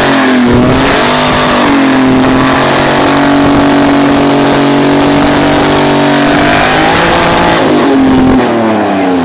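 Ford Cologne 2.8 V6 engine in a Lada 2101 held at high revs during a burnout, with the rear tyres spinning and screeching. The revs climb over the first second or two, hold steady and high, rise once more near the end and then fall away as the throttle is lifted.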